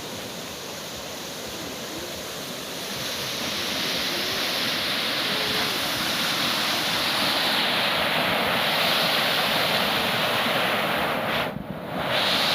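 Steady rush of floodwater pouring down a waterfall, growing louder over the first few seconds and dropping away for a moment about eleven seconds in.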